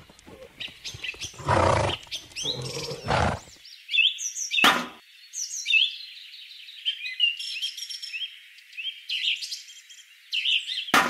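Small birds chirping and tweeting in quick, varied calls, with a few handling noises early on and two sharp knocks, one near the middle and one at the end.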